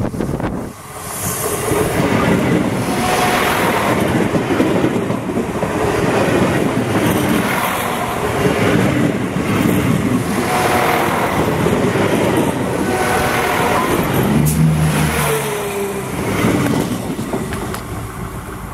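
Irish Rail ICR (Class 22000) diesel multiple-unit railcars passing at close range at low speed. Steel wheels rumble and click on the rail, with a surge of noise about every two seconds as each bogie goes by.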